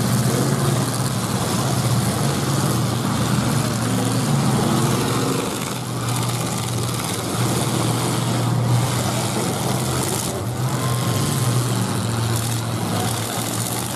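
Engines of several 1980s full-size demolition derby cars running together in the arena, a steady low drone that rises and falls a little as they drive and rev.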